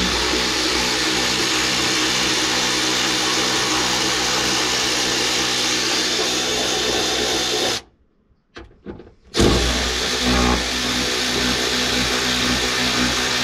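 Cordless electric ratchet running, backing bolts out of a tailgate hinge: a steady motor whine for about eight seconds, a short stop, then running again on the next bolt.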